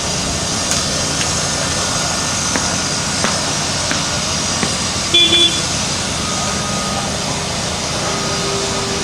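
Steady noise of rail track repair work: machinery running with scattered clicks and knocks. A brief, high-pitched beep or toot comes about five seconds in.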